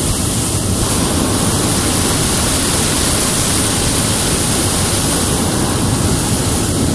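Hot-air balloon's propane burner firing: a loud, steady blast of noise held without a break.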